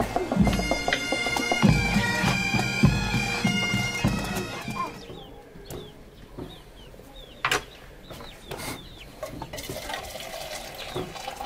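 A metal spoon scraping thick palm nut paste out of a tin can into a stainless steel stockpot: squealing metal-on-metal scrapes with dull knocks. About halfway through these give way to a run of short squeaks as the soup is stirred, then a single sharp click.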